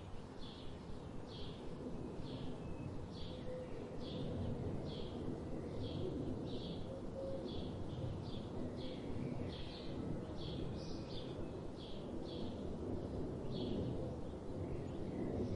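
A bird repeating a short chirp over and over, a little under once a second, over a steady low rumble of background noise.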